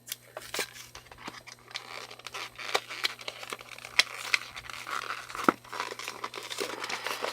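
Yu-Gi-Oh booster pack wrappers being torn open and crinkled by hand: a dense, irregular run of sharp crackles.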